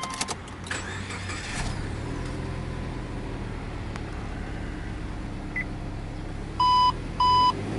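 Subaru Legacy 2.0GT's turbocharged EJ20 flat-four engine starting and settling into a steady idle at about 1,000 rpm. Near the end the dashboard warning chime beeps twice loudly, the low-fuel warning.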